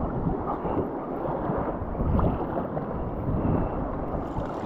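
Wind rushing over the microphone, with water lapping and splashing against a sea kayak's hull as it moves through light chop.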